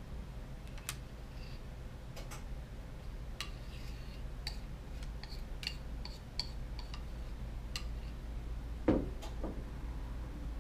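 Metal spoon clinking and scraping against the side of a small pot while scooping out flatbread batter, a dozen or so light, ringing clinks at irregular intervals. About nine seconds in, one dull thump as the pot is set down on the table.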